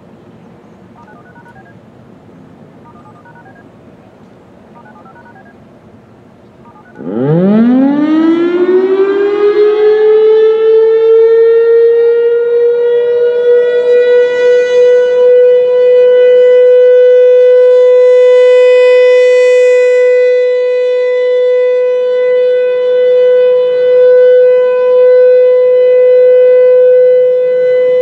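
Federal Signal Thunderbolt 1000 outdoor warning siren starting up about seven seconds in: its pitch rises quickly and then holds one steady tone for the alert signal. The tone swells and fades as the horn rotates.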